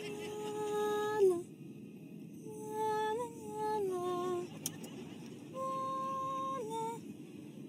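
A woman humming a slow, creepy tune in three phrases of long held notes, each phrase sliding down at its end, over the steady road hum of a car cabin.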